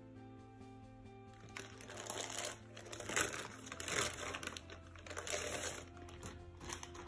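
Clear plastic bag crinkling in a series of loud bursts as a laptop is slid out of it, starting about a second and a half in, over soft background music.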